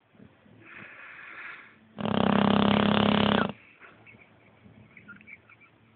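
Boxer dog snoring in its sleep: a softer breath, then one loud, buzzing snore lasting about a second and a half.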